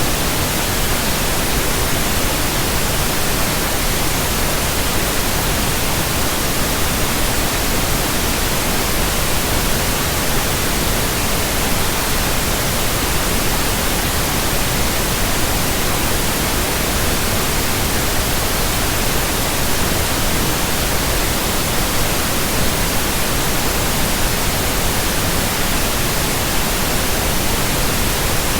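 Pink noise: a steady, even hiss spread across all pitches, with no change in level.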